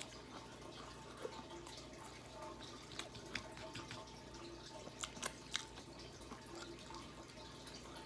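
A person chewing a mouthful of ghost pepper tortilla chips with the mouth closed: faint, scattered crunches and wet mouth clicks, a few of them sharper near the middle. A steady faint hum runs underneath.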